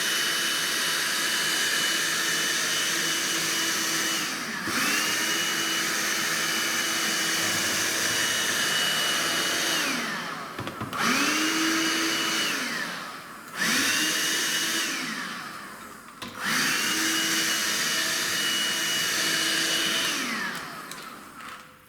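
Handheld car vacuum cleaner running with a steady motor whine, sucking lint from a knitting machine's needles. It is switched off and on repeatedly: the whine winds down and back up four times, near 4, 10, 13 and 16 seconds in, and winds down again near the end.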